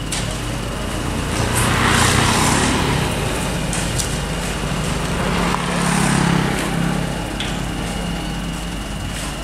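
Diesel engine of a loaded dump truck running, revving up twice, about two and six seconds in, with a few sharp clicks over it.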